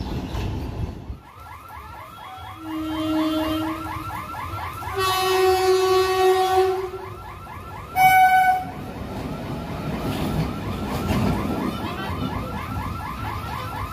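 Two-tone horn of an Indian Railways WAP4 electric locomotive: a low blast, then a long loud blast, then a short high blast, the last the loudest. Under them runs a steady, fast-warbling electronic alarm.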